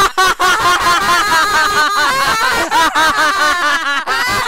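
Several voices laughing together, a fast run of overlapping "ha-ha" sounds.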